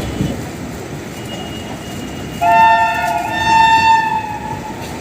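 A train horn sounds a shrill blast of two close tones about halfway in and holds for around two seconds, over the steady rumble of a train running.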